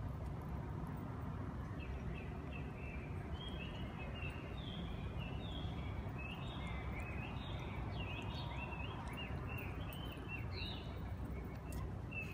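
Small birds chirping over and over, short quick calls, over a steady low background rumble.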